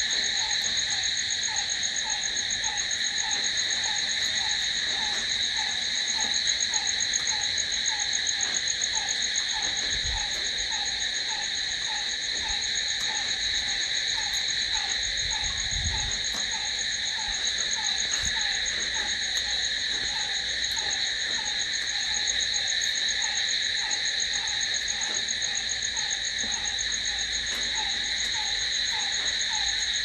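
Crickets trilling in a steady, unbroken night chorus. Beneath it, a shorter, lower chirp repeats about twice a second.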